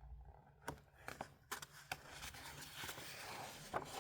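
Faint paper rustling with a few small clicks and taps, typical of a picture book's page being handled and turned.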